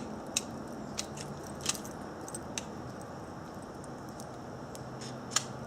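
Small, sharp metallic clicks, about half a dozen spaced irregularly, from handling the CZ-27 .32 ACP pistol's cartridges and magazine while getting ready for the next string of fire; no shots are fired.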